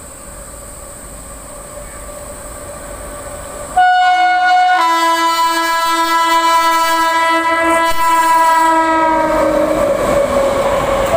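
WAG-9 electric locomotive approaching at speed with a rising rumble, then sounding its horn about four seconds in: a long, loud multi-tone blast that changes note a second later and slides down in pitch as the locomotive passes close by. The rumble of the wheels and wagons follows.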